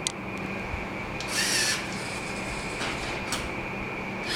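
Robot arm's small electric motors and gears whirring in a short burst about a second and a half in, with a click at the start and a tick later, over a faint steady hum.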